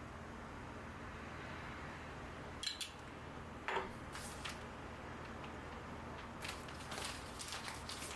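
A few light clicks and taps of dishes and utensils over a steady low hum: two sharper clicks near the middle, then a run of quicker light taps near the end.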